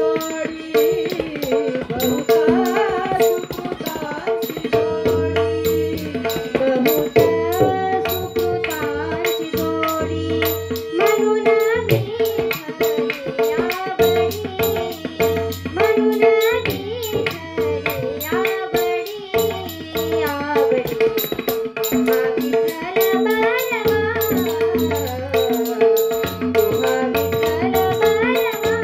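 A devotional Marathi bhajan sung by a young girl, with tabla playing fast strokes under a steady held drone note. Bright metallic ticks keep a regular beat.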